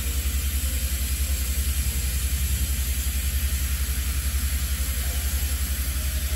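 9600-class steam locomotive No. 49671 venting with a loud, steady hiss, over a low throb that pulses about eight times a second.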